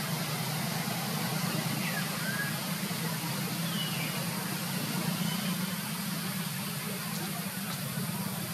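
A steady low engine-like drone under an even hiss, with a few faint high chirps about two and four seconds in.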